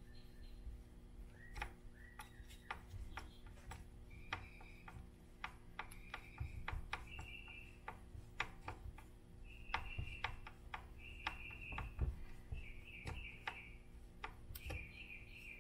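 Faint scattered clicks and taps of a hex driver and small plastic parts as the screws on a Traxxas Slash 4x4 differential cover are tightened. Short high chirps come repeatedly through the second half.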